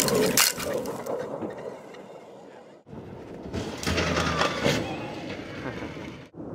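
Dirt and gravel spraying and crunching under an electric off-road buggy's tyres as it tears past, with sharp cracks of flung stones. The noise cuts off abruptly about three seconds in and again near the end, with a second stretch of tyre-and-dirt noise between.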